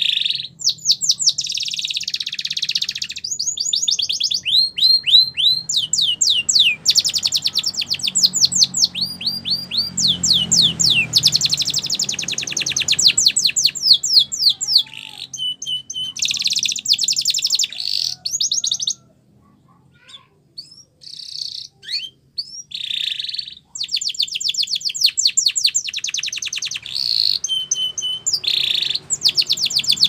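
Canary singing: long runs of fast, repeated trilled notes, each a quick sweeping whistle, broken now and then by short steady piping notes. About two-thirds of the way in, the song thins to a few scattered notes for a few seconds before the fast trills resume.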